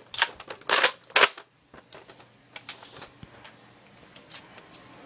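Nerf blasters and gear being handled: a few sharp plastic clacks and short hissy bursts in the first second and a half, then faint scattered clicks and rustling.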